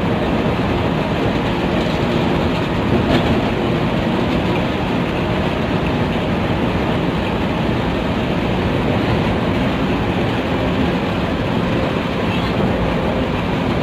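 Intercity coach bus on the move: a steady, unbroken mix of engine and road noise.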